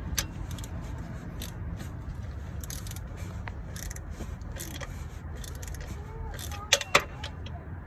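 Metal hand tools and fasteners clinking and scraping against engine parts, with two sharper clicks about seven seconds in, over a steady low rumble.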